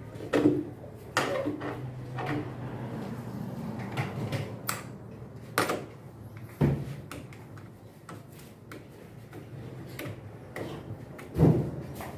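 Irregular knocks and clicks of parts and tools being handled during the reassembly of a washing machine, with a sharp knock about half a second in and another near the end.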